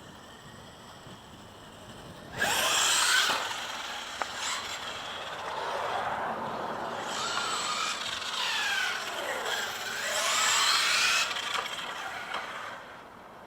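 Electric-converted 1/8-scale RC buggy driving, its motor and drivetrain whining up and down in pitch as it speeds up and slows. The car is really loud because it still runs the Nitro Mod 1 gears. The sound starts suddenly a couple of seconds in, swells to two loudest passes, and falls away near the end.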